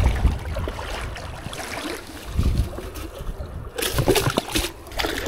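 Creek water sloshing around a wader's legs, then a splash about four seconds in as a white bass is dropped into a wire-mesh fish basket in the water.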